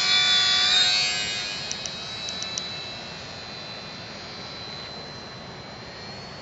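ParkZone Ultra Micro Pole Cat RC plane's small electric motor and propeller whining at full throttle as it is hand-launched. The whine is loud and rises slightly for about the first second, then fades as the plane flies off, leaving a thinner, steady high whine.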